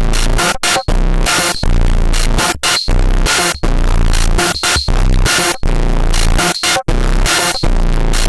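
Loud electronic dance music with heavy bass and a choppy, stuttering beat.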